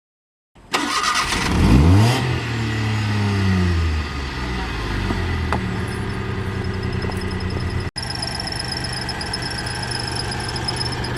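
Car engine cranked by the starter, catching about a second in and revving up briefly, then settling to a steady idle.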